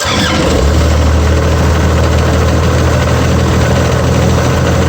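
Vermeer BC1000XL brush chipper's engine turned over with the ignition key in the start position: a loud engine sound that comes in abruptly and holds steady.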